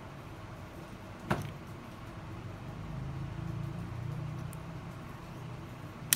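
Sharp clicks of metal parts as a flexible-shaft grinder's handpiece is handled and twisted, one about a second in and another near the end, over a steady low hum.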